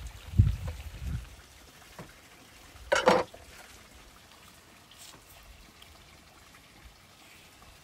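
Knife cutting and handling raw lamb on a wooden board: a few low thumps in the first second or so, and one short, louder scrape or knock about three seconds in, then quiet.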